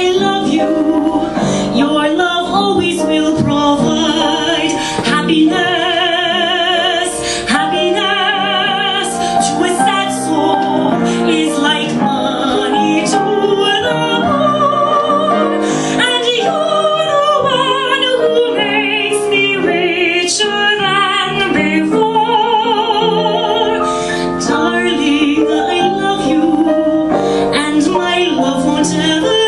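A woman singing live with wide vibrato on held notes, accompanied by piano.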